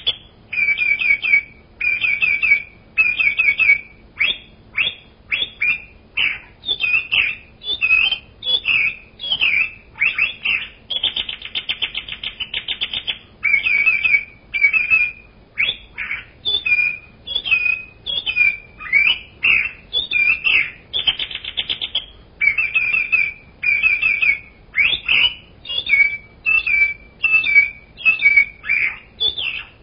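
Birds calling over and over in short, high calls and rapid chattering trills, each lasting under a second to about two seconds, with brief pauses between them.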